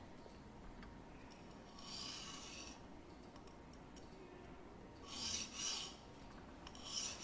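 Oiled synthetic sharpening stone (Barite T2, 220 grit) on a guided-system arm, drawn along the steel edge of a knife blade in three short scraping strokes, about two, five and seven seconds in. These are angle-setting strokes, made to see where the stone rubs off the marker on the bevel.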